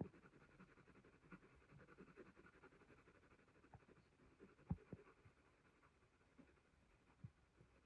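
Faint scratching of a graphite pencil shading on hot-pressed drawing paper in quick short strokes, with a few soft taps about halfway through and near the end.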